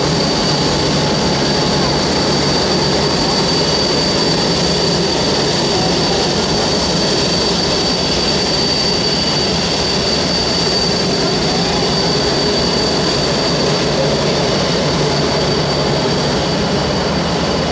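Boeing 787 Dreamliner's Rolls-Royce Trent 1000 turbofans running at taxi power: a steady, loud rush of jet noise with a continuous high-pitched whine.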